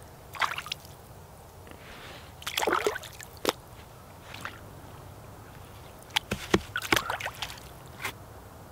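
Water sloshing and splashing in short irregular bursts, with drips, as pieces of rabbit meat are rinsed by hand in cold water.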